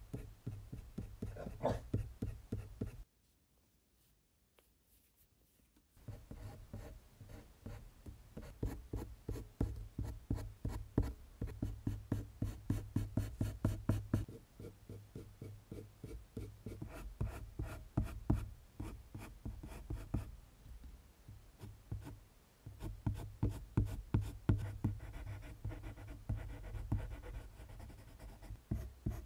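Colored pencil scratching on drawing paper in quick, short hatching strokes, several a second. The strokes stop for about three seconds a few seconds in, then resume.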